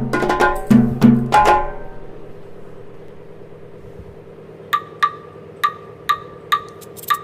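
Background music: a plucked, percussive melody that stops about two seconds in, leaving a soft steady drone, with a regular ticking of about two a second coming in near the middle.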